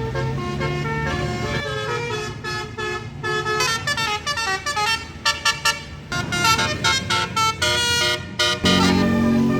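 Basuri telolet bus horn, a multi-tone air horn, playing a melody of pitched toots that breaks into rapid short staccato notes, then a long held chord near the end.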